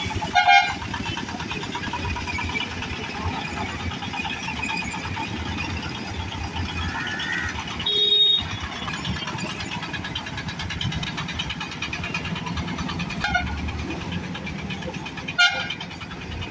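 Busy mixed road traffic crossing a railway line: motorcycle, truck and bus engines running and pulling away, with short horn honks about half a second in, at about eight seconds, and twice near the end.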